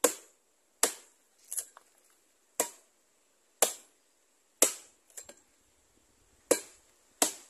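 Machete chopping into a hollow tree trunk: sharp blows about once a second, about seven hard strikes with a few lighter taps between.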